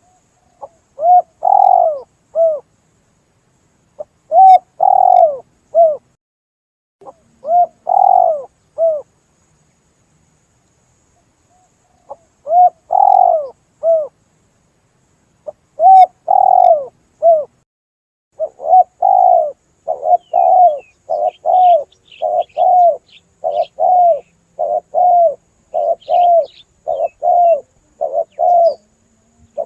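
Spotted dove (tekukur) cooing as a hunter's lure call: phrases of three or four coos separated by pauses, then from about two-thirds of the way in a faster, unbroken run of repeated coos. Faint high chirps of small birds come in over the later coos.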